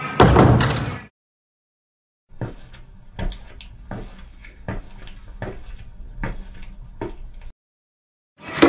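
A metal lever door handle is turned and the door latch clatters open. Then footsteps on a hard floor, about one step every three quarters of a second, and near the end another lever handle rattles as a second door is opened.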